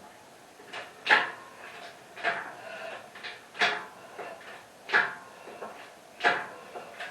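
Hand pump of a hydraulic engine hoist being worked in steady strokes, each stroke giving a sharp creaking clunk with a short squeak, about one every second and a quarter.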